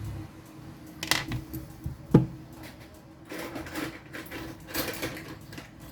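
Small hard-object handling during phone-repair work: clicks, taps and short scrapes of tools and plastic and metal phone parts on a work surface, with one sharp knock about two seconds in.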